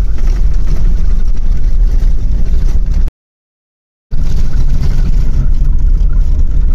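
Loud, steady low rumble of a vehicle driving on an unsealed dirt road, heard from inside. It drops out completely for about a second partway through, then carries on.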